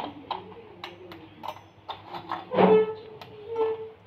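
Chocolate cream biscuits snapped by hand, the pieces dropping and clicking into a steel mixer jar in a quick run of short sharp clicks.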